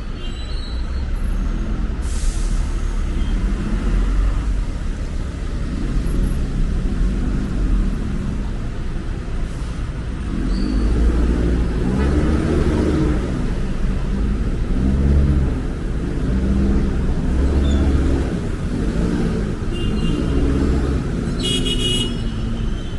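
City street traffic: a steady low rumble of vehicle engines and passing cars, with a few brief high squeals near the end.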